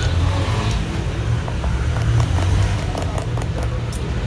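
Steady low rumble of background motor noise, like passing traffic, with a few light sharp clicks about three to four seconds in.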